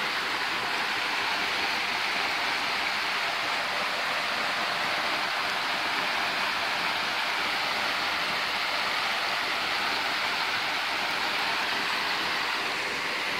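Steady rush of a flood-swollen creek, with fast muddy water pouring over rocks and through standing trees, and rain falling.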